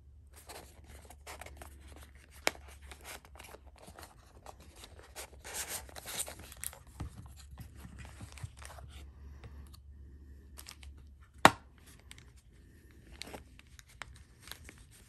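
Knife packaging being handled: paper and plastic wrapping rustling, tearing and scraping in irregular bursts, with one sharp click about eleven seconds in.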